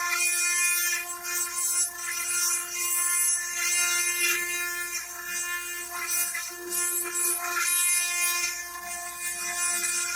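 CNC stone-engraving machine at work: the spindle whines steadily while the cutter grinds into stone with a hiss that surges and eases every second or so, and the whine shifts slightly in pitch about two-thirds of the way through.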